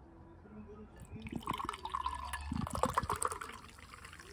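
Carbonated grape chuhai poured from an aluminium can into a glass, splashing and fizzing. It starts about a second in, is loudest around three seconds, and dies away near the end.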